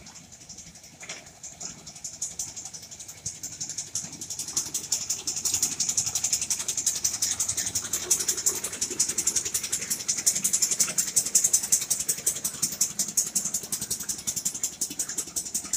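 Park mini train's carriages and wheels rattling and clattering on the narrow-gauge track as it passes close by. It is a dense, fast, shaker-like rattle that grows louder as the train approaches and eases as it goes by.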